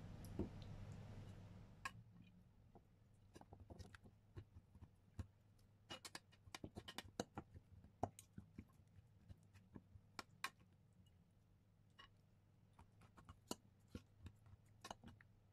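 Faint, irregular clicks and taps of a metal fork and spoon against a glass dish as raw chicken is pricked all over in its marinade, busiest about six to eight seconds in.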